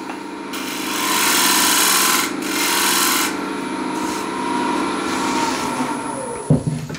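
Neureiter Twister XL wood lathe running with a steady hum while a refiner tool scrapes across the outside of the spinning wooden bowl: a loud hissing scrape for about three seconds with a brief break, then softer rubbing. The lathe hum stops near the end.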